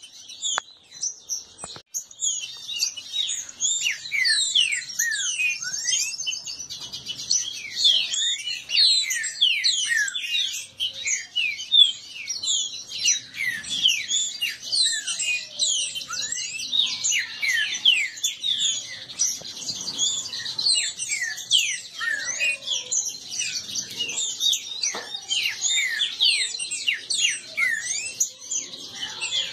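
Caged green-winged saltators (trinca-ferros) singing against each other in a dispute: a dense, rapid, unbroken run of quick sweeping chirps and whistled notes, overlapping with no pause.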